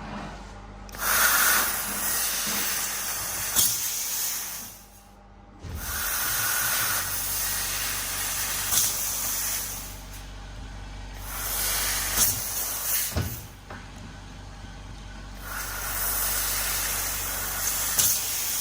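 2000 W continuous-wave handheld laser cutting metal through its cutting nozzle, the assist gas jet hissing in four bursts of a few seconds each with short pauses between.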